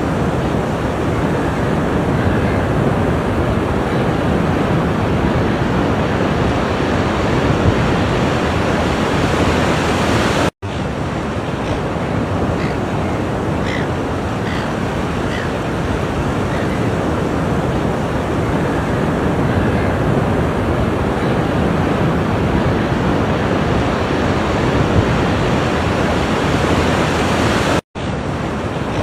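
Ocean surf washing onto a shore as a steady, continuous rush. The sound drops out abruptly for a split second twice, once about a third of the way in and once near the end.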